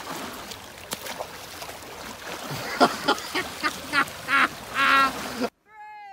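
Water sloshing against rocks, then a person's short, high cries in quick succession, the last ones rising, as a woman slips down a rock into the water. After a sudden cut, a single falling whistle-like tone.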